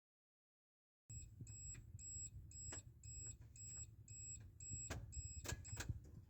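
Electronic warning beeper sounding short, evenly spaced beeps at about two a second, with a few sharp clicks among them, just before the engine is cranked.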